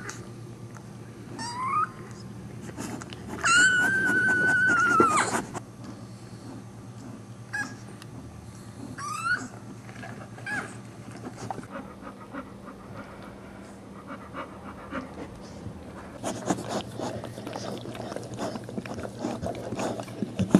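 Newborn American Staffordshire Terrier puppy crying in thin, high squeals: a short rising cry about a second and a half in, a long held cry from about three and a half to five seconds, and another short rising cry about nine seconds in. Later comes soft rustling and licking as the mother dog licks the puppy.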